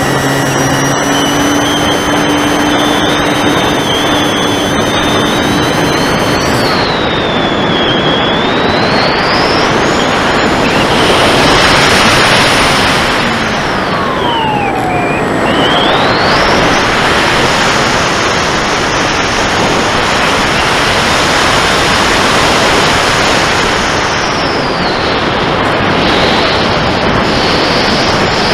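Air rushing over an onboard camera's microphone under the wing of a fast-flying electric RC glider, with the glider's 1150kv brushless motor and 10x7 propeller whining over it. The whine's pitch swoops down and back up through the middle, holds high, then drops near the end.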